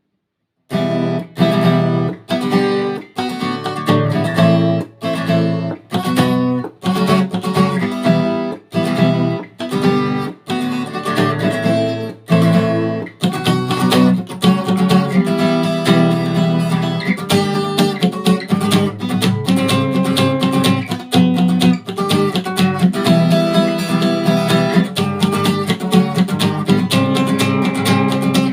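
Acoustic guitar strumming chords. The strokes begin about a second in, short and choppy with brief breaks, and run on as continuous strumming from about halfway.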